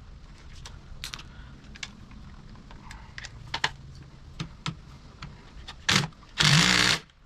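Clicks and knocks of a bolt and tool being handled, then a handheld power tool running in two short bursts near the end, the second about half a second long, as a seat bolt is driven in.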